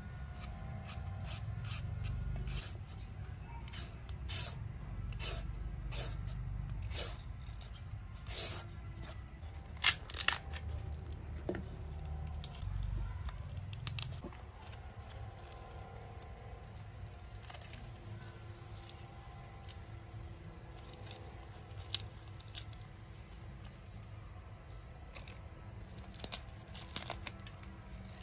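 Hand food preparation: irregular crisp clicks, cuts and tearing sounds as ingredients are cut and pulled apart, loudest around ten seconds in and again in a cluster near the end.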